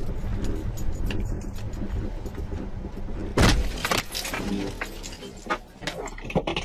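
A car rumbling along over a rough snowy track, then a loud bang about three and a half seconds in as it hits something, followed by several sharp knocks and rattles.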